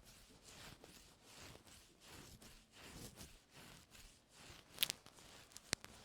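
Ear-cleaning tools scraping and rustling faintly in the ear canal close to the microphone, with two sharp clicks near the end.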